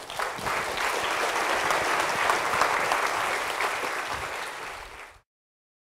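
Audience applauding, easing off about four seconds in and then cut off abruptly.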